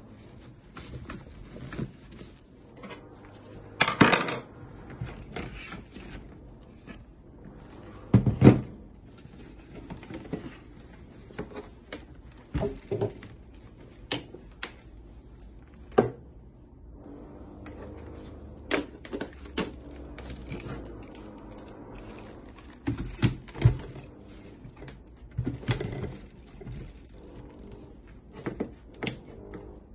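Handling noises from unpacking a Tefal blender: rustling of a nonwoven tote bag and a string of irregular knocks and clicks as the blender's base and glass jug are set down on a cabinet top and the jug is fitted onto the base. The loudest are two short rustling clatters, about four and eight seconds in.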